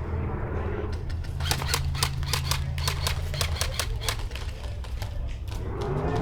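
Airsoft guns firing a rapid string of sharp shots for about four seconds, over a steady low hum.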